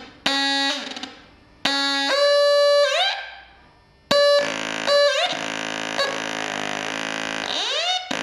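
Circuit-bent walkie-talkie putting out buzzy electronic tones. First come two bursts that fade away, the second higher and bending upward. After a brief lull, a sustained buzz starts about four seconds in, with notes that shift lower and rising sweeps near the end.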